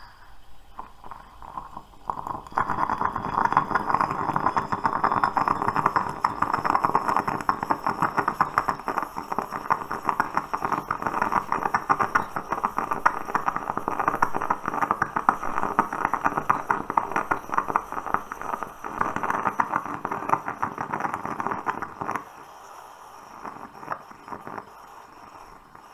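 Stovetop moka pot sputtering as the brewed coffee bubbles up into the upper chamber: a dense, rapid crackle that starts about two seconds in and dies down near the end.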